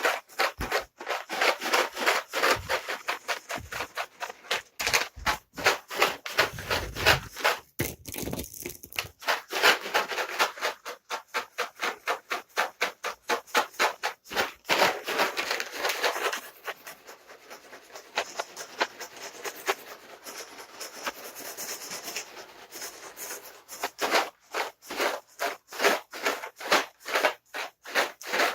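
Cat treats being shaken in their container: a fast run of rattling shakes, softer for a stretch in the middle.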